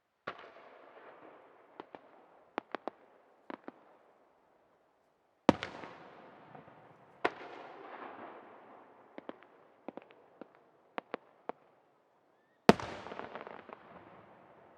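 Aerial firework shells bursting. There are four main booms, each trailing off over a second or two, with single sharp cracks in between. The loudest bursts come about five seconds in and near the end.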